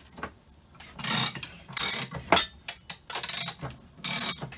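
Dayton 36-inch hand-cranked slip roll being worked through its ratchet-coupled crank handle to roll a small steel sheet: short metallic scraping bursts about once a second, starting about a second in.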